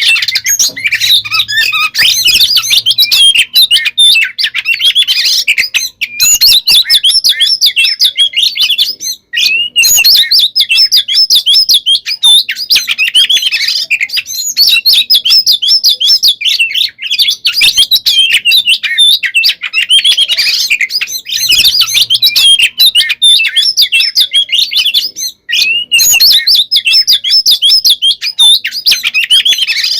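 Oriental magpie-robin (kacer) in a loud, continuous, fast chattering song of rapid varied whistles, broken only by a few very short pauses. It is the aggressive 'fighting' song (tarung, ngeplong) that keepers play to provoke other magpie-robins into singing back.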